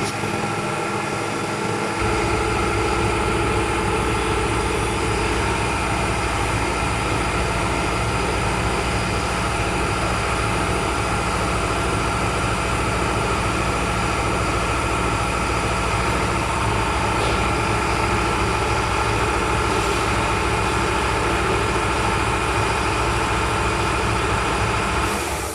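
CNC milling machine running as its axes are jogged to reposition the edge finder: a steady machine hum and whine made of several even tones, with a deeper hum joining about two seconds in. It stops just before the end.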